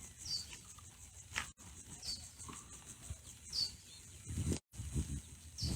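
A bird calling outdoors, a short high chirp dropping slightly in pitch, repeated about every second and a half over faint background noise. The sound cuts out completely for a moment twice.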